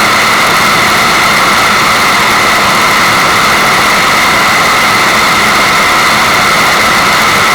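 Constant rushing water noise used as tinnitus-masking white noise: loud and even, brightest in the upper-middle range, with no change.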